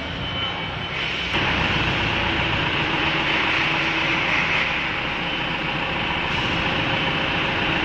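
Steady, loud machinery noise with a rubbing, grinding quality, growing louder and brighter about a second and a half in.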